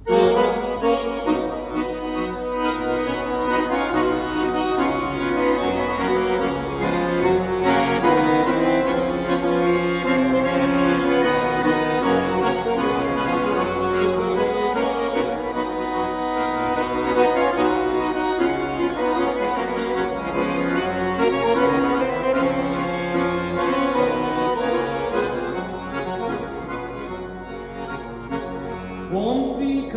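Solo chromatic button accordion playing a tune with full, held chords and a moving melody; it begins abruptly and plays continuously, easing slightly in loudness near the end.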